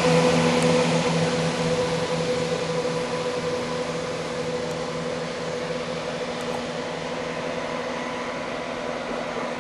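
A Class 170 Turbostar diesel multiple unit, with MTU engines, is pulling away on full power to climb the Lickey Incline. Its engines and cooling fan give a steady whine, described as screaming, over a rushing noise. The sound fades gradually as the train draws away.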